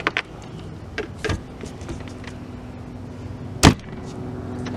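Scattered knocks and clicks of hand work on a rooftop solar-panel mount, the loudest a single sharp knock about three and a half seconds in, over a steady low hum.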